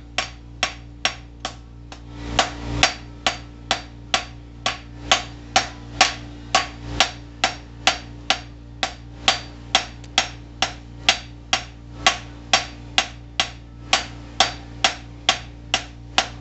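Hand hammer striking a hot metal bar on the base of an anvil horn, drawing it out, with the horn working like a fuller. The blows are steady and even, about two and a half a second, each with a short ring.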